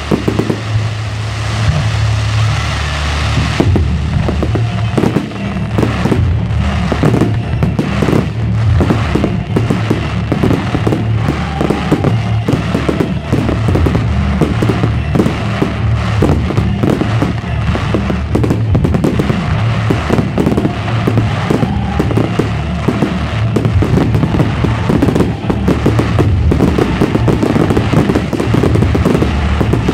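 Aerial fireworks display: a rapid, dense barrage of bursts and crackles, thickening about four seconds in, with music playing underneath.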